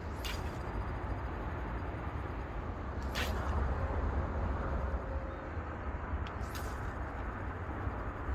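Steady low outdoor rumble with three short swishes about three seconds apart. The loudest, about three seconds in, comes as a surf-casting rod is swung forward through a cast.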